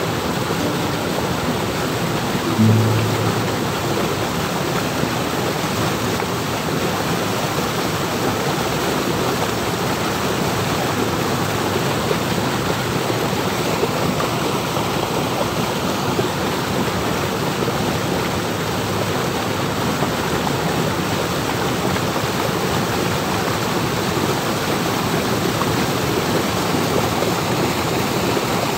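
Muddy river water rushing and churning over a rock ledge in a small waterfall, a steady, even rush.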